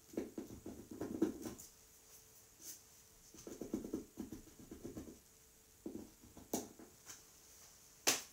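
Paintbrush scratching and dabbing across a painted panel in short, irregular strokes, faint, with a sharp click near the end.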